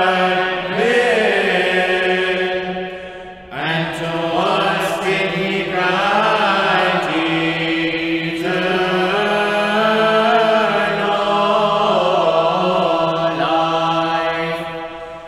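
Byzantine chant sung by a choir: a melody moving over a steady held drone, the ison. The voices break off briefly about three and a half seconds in, then come back in together.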